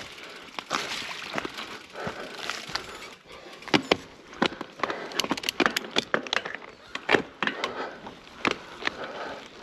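Mountain bike clattering over rough trail ground: a dense run of sharp knocks and rattles over a steady rushing noise, thickest from about three seconds in.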